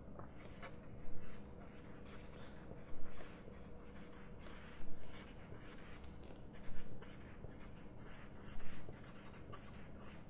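Felt-tip marker writing on a sheet of paper: a continuous run of short scratching strokes as words are written out by hand, some strokes louder than others.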